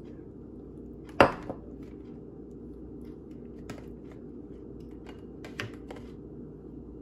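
A single sharp knock about a second in, as an emptied white dish is set down on the wooden table. A few faint clicks follow later, over a steady low hum.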